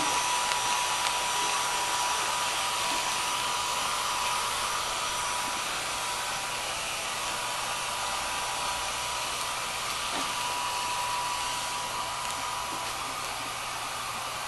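Small electric heat gun blowing steadily, with a thin steady whine from its fan, drying a freshly sprayed coat of superhydrophobic coating on concrete form panels. It grows slightly fainter toward the end.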